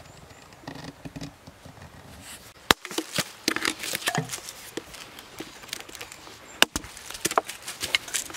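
Dry wood being handled and broken: rustling and small knocks, with two sharp cracks that stand out, about three seconds into the sound and again near the end.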